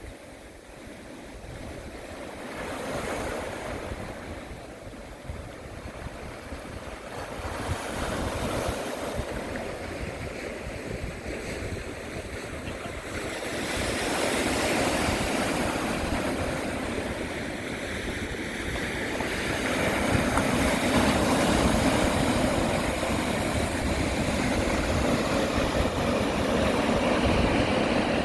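Sea waves surging and washing in, swelling louder every several seconds and building overall, with wind buffeting the microphone.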